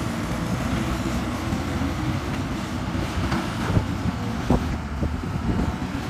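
Diesel engines of a JCB backhoe loader and a tracked excavator running steadily under load as they dig and move dirt. A few short knocks come through from the middle of the stretch on.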